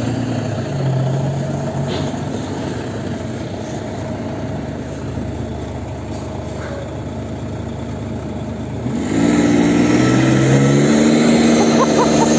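Isuzu VehiCROSS V6 engine working under load as it tows a semi truck on a strap. About nine seconds in, it revs up sharply and gets louder as its wheels spin on the snow.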